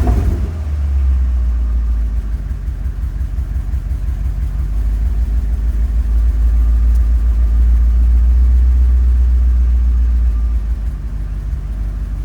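Ford F-250 truck engine running, with a steady low pulsing rumble that grows louder for a few seconds past the middle and settles back near the end. The spark plugs have just been re-gapped to cure a misfire, and it still runs a little rough.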